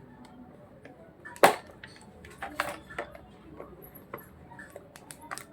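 Scattered sharp clicks and knocks of small hard objects being handled, as of phone-repair tools and parts on a workbench; the loudest knock comes about a second and a half in, and a quick cluster of clicks comes near the end.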